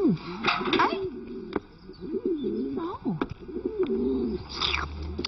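Pigeon cooing in a rolling, wavering series of calls, with a few short sharp clicks between them.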